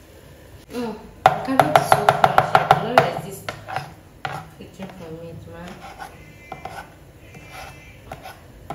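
A carrot being rubbed hard over a flat metal hand grater, a quick run of strokes at about six a second for nearly two seconds, followed by softer scrapes and taps.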